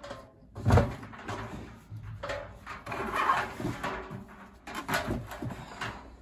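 Hands working inside an opened tumble dryer cabinet: irregular knocks, scrapes and clicks of plastic and metal parts, with one sharp knock about a second in and a longer scrape around the middle.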